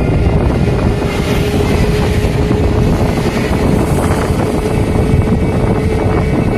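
A vehicle engine running steadily at an even pitch, with wind buffeting the microphone as it moves.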